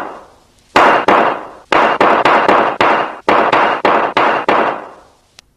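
Tank cannon fire: a rapid series of about a dozen sharp blasts, some close together, each dying away quickly.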